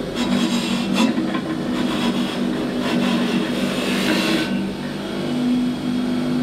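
A power tool running with a steady hum that drops in pitch from time to time, as if loaded against the work. For the first four and a half seconds or so there is harsh scraping, abrasive noise over the hum, typical of cleaning up a metal mating surface on the differential housing.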